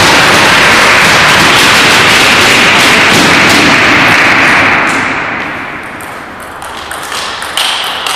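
A loud, steady rushing noise whose source the material does not show fills the first five seconds, then fades away. Near the end a rally starts: sharp clicks of a table tennis ball struck by the paddles and bouncing on the table.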